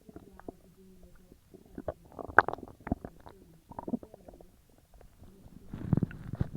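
Stomach and bowels gurgling and rumbling while digesting a large meal: irregular bubbling gurgles and pops, with a louder burst of gurgles about two seconds in and a longer rumble near the end.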